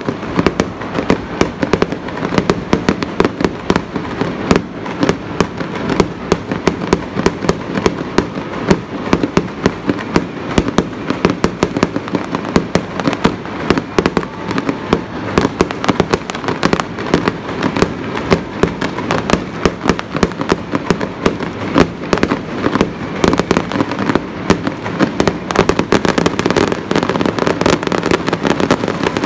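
Fireworks display going off without a break: a dense run of bangs and crackles, several a second, over a continuous hiss of burning effects. It thickens a little near the end.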